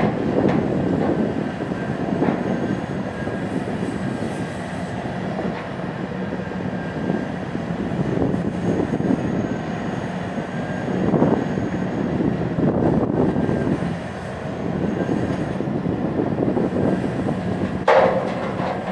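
Heavy mining excavator and dump truck engines working under load, a steady heavy drone that swells and eases as the shovel digs and loads. A sudden sharp sound comes about a second before the end.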